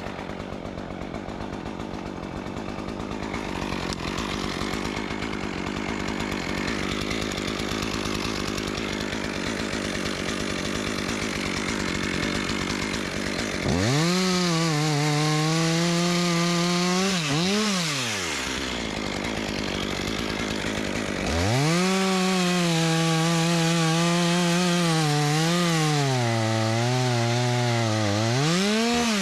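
Two-stroke chainsaw running hard through wood. About halfway through, its engine note comes out clearly and rises and falls in pitch, then drops away for a few seconds and comes back.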